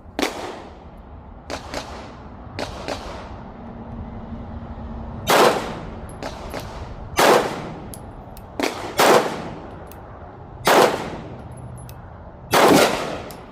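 Five pistol shots from a compensated FN 509 Tactical 9mm, fired at a slow, even pace about two seconds apart, each with a ringing tail. Fainter gunshots fall in between.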